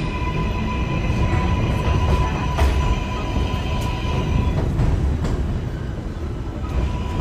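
R188 subway cars running along the elevated platform track: a steady low rumble with a thin steady whine and a few sharp wheel clicks, as one train moves off and the next pulls in.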